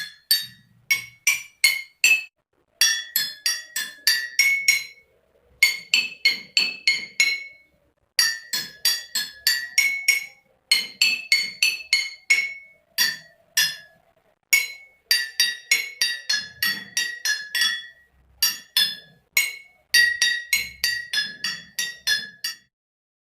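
Water-tuned glasses struck one after another to play a melody: short, ringing glass clinks whose pitch changes from note to note, a few notes a second, in phrases with brief pauses between them.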